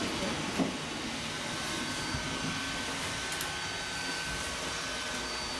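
Steady background noise with a faint high whine running through it, and one soft knock about half a second in.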